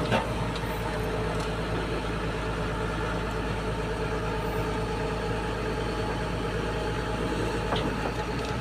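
Hitachi excavator's diesel engine idling steadily.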